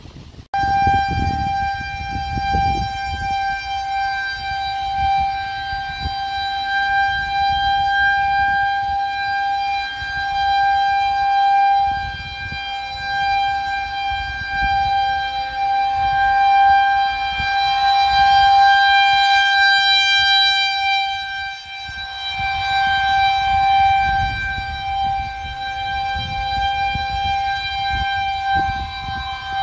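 Federal Signal 2001-130 rotating electromechanical outdoor warning siren sounding a steady single-tone alert for a tornado warning. It cuts in abruptly about half a second in, then holds one pitch while its loudness swells and fades as the head rotates.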